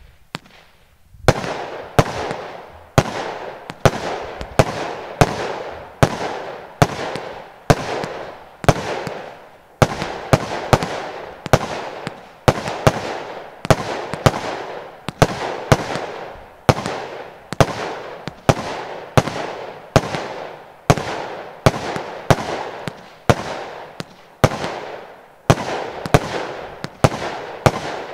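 Lonestar Brokat/Blue firework cake (battery) firing shot after shot, about one and a half to two a second from about a second in. Each shot is a sharp bang followed by a hissing, fizzing tail as the gold brocade stars burn out.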